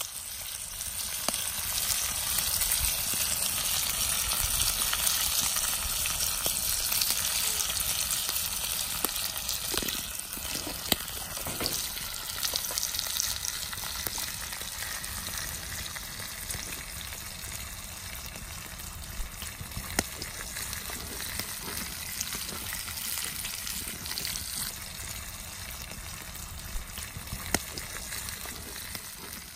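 Bacon sizzling in a cast-iron skillet over an open campfire, a steady hiss with a few sharp pops; the sizzle fades out near the end.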